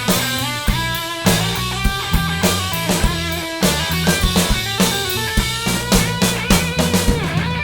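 Rock band playing an instrumental passage between vocal lines: drum kit with bass drum and snare under distorted electric guitar and bass.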